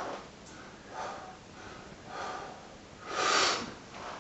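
A man taking short, forceful breaths, about one a second, with a bigger, longer one a little after three seconds in: bracing himself over a heavy dumbbell just before cleaning it.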